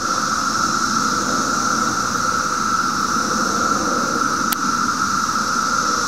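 Dense chorus of periodical cicadas (Brood XIII): a steady, unbroken drone held on one pitch, with a fainter high hiss above it. A single sharp click about four and a half seconds in.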